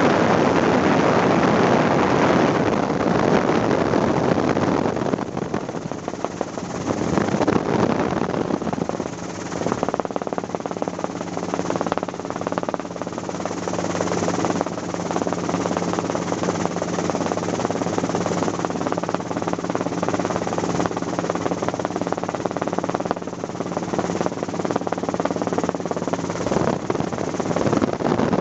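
Helicopter in flight, heard from aboard: continuous rotor and engine noise. It is loudest and roughest for the first few seconds, then settles into an even drone with a steady low hum through it.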